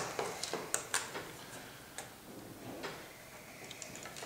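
Light clicks and taps of a small metal measuring tool being set against a pine board, several in the first second, then a faint pencil scratch about three seconds in as the mark is drawn.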